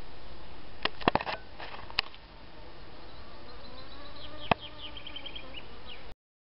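An insect buzzing steadily, with a few sharp clicks about a second and two seconds in and again in the second half, and a short run of high chirps near the end; the sound cuts off suddenly just before the end.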